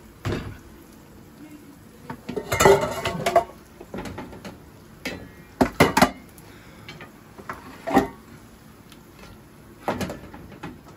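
Metal cooking utensils knocking and scraping: a slotted skimmer clinking against a metal tray and pot as cooked rice is scooped out. The knocks are scattered, with a busier cluster a couple of seconds in.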